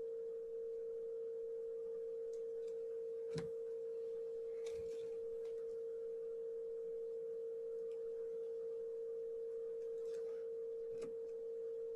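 A steady electronic tone at a single pitch, with a faint click about three and a half seconds in and another near the end.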